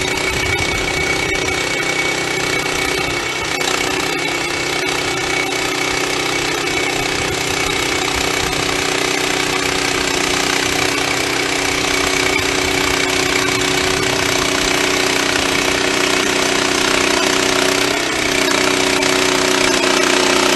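Wood-Mizer LX25 portable band sawmill running steadily: its engine and band blade give a constant mechanical drone with a high steady whine. The pitch shifts slightly around three and a half seconds in and again near the end.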